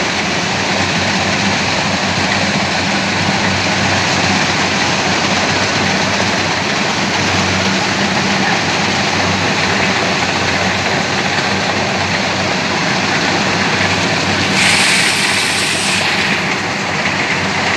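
Kubota DC70 combine harvester's diesel engine running steadily with the machine's mechanical clatter and whir. A brief hissing rush rises over it about three-quarters of the way through.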